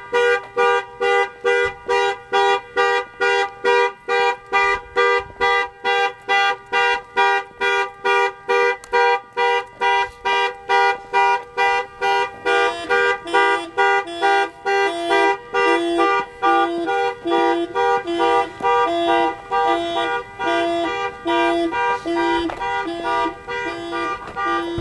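Car alarms set off with key fob panic buttons: car horns honking about twice a second in a steady rhythm. A second, lower-pitched horn joins about halfway, out of step with the first.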